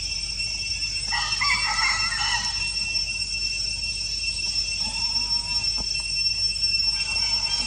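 An animal's pitched call of about a second and a half, starting a second in, and a shorter, flatter call near five seconds, over a steady high drone of insects.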